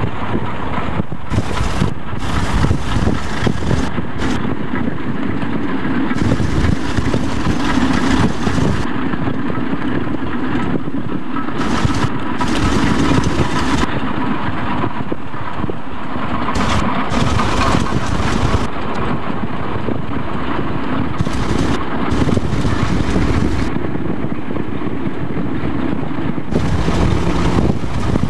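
A car driving at speed alongside a moving train: a steady rush of road and engine noise heard from inside the car, with no clear rhythm.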